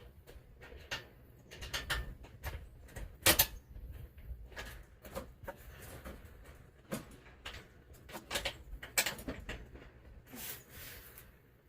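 Scattered metal clinks and knocks of bolts and hand tools being worked while bolting an engine onto its mount, with a brief scraping near the end.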